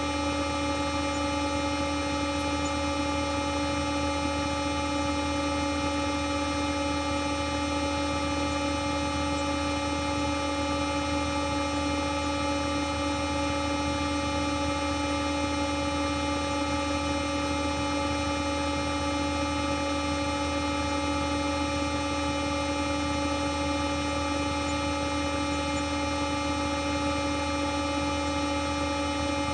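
A digitally edited 'G Major' sound effect: a steady, unchanging, horn-like drone of many stacked tones held as one sustained chord, with a low hum beneath.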